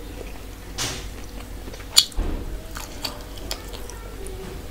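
Eating sounds: a person chewing while her fingers work rice and curry on a steel plate, with scattered small clicks and one sharp click about two seconds in.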